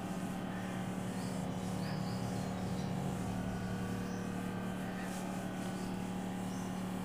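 A duster wipes marker writing off a whiteboard in a few faint swishes, over a steady low hum.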